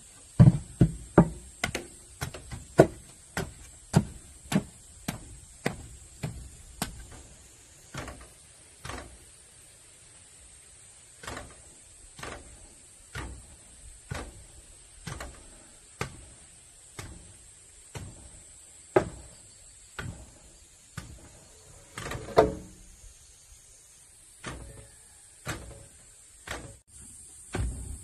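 A long wooden pole ramming damp earth into a wooden plank formwork, tamping a rammed-earth wall: a series of dull thuds, about two a second at first, slowing to about one a second.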